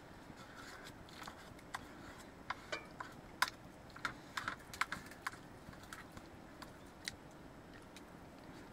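Irregular light clicks and taps of someone eating a meal from a plate, about a dozen spread over several seconds, the sharpest about three and a half seconds in.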